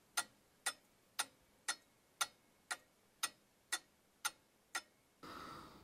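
Wall clock ticking, about two ticks a second. The ticking stops about five seconds in and gives way to a faint room hiss.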